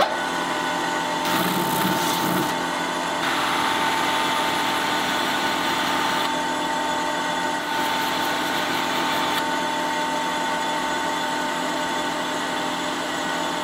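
Motor-driven felt polishing wheel coated in abrasive compound spinning with a steady whine, a steel knife blade held against it; the hiss of the blade on the wheel swells and fades several times as the blade is worked.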